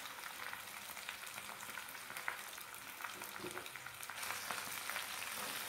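Thin potato slices frying in hot sesame oil in a pan: a faint, steady sizzle with light crackling.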